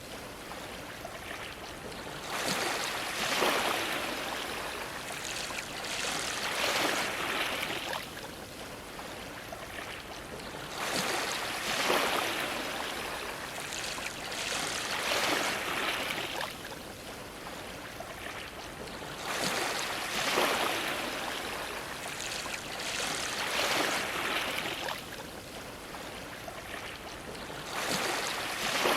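Ocean waves washing against a dock, coming in surges every three to four seconds with a quieter hiss of water between them.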